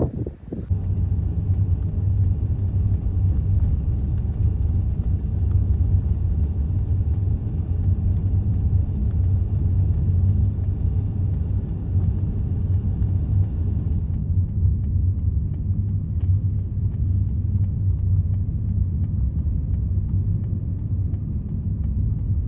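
Steady low rumble of a vehicle's engine and road noise, heard from inside a vehicle driving on a snow-covered road. About two-thirds of the way through, the higher hiss drops out and only the low rumble remains.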